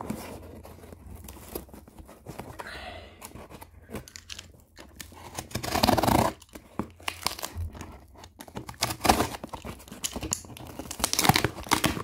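Utility knife slicing through the packing tape of a cardboard shipping box, then tape and cardboard tearing as the flaps are pulled open. An uneven run of scrapes and rips, with louder tears about halfway and near the end.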